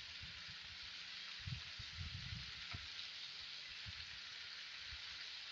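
Sliced bitter gourd and onion sizzling in hot oil in a kadai: a faint, even hiss, with a few soft bumps about one and a half to two and a half seconds in.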